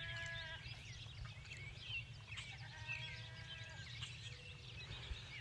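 Two long, steady bleats from an animal off in the distance, one at the start and one about two and a half seconds in; to the listener it sounds like a sheep, maybe a goat. Small birds chirp throughout.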